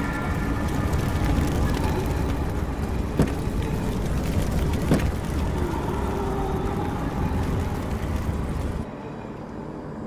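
Film sound effect of a car running, with two sharp bangs about three and five seconds in. It cuts off suddenly near the end, leaving a quieter hum.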